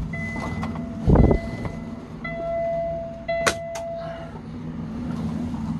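Inside a 2014 Kenworth T680's cab: the truck's diesel engine idles with a steady low hum. A dull thump comes about a second in, then an electronic dashboard tone sounds for about two seconds, broken by a sharp double click in the middle.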